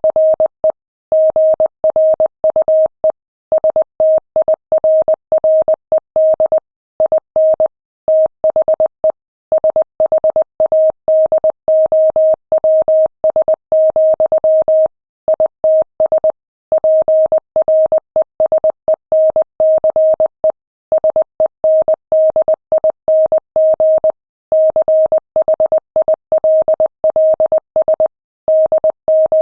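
Morse code sent at 20 words per minute: a single steady electronic beep tone keyed on and off in rapid dots and dashes, with short gaps between letters and longer gaps between words.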